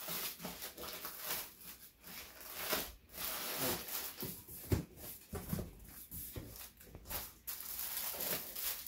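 Rustling and crinkling of plastic-bagged shirts and cardboard as hands dig through a cardboard shipping box, with scrapes and bumps as the box is shifted on the carpet.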